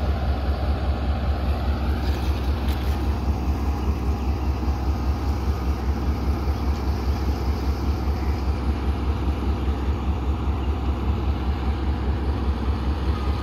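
Pakistan Railways diesel-electric locomotive's engine running steadily at low speed, a deep throb pulsing about four times a second.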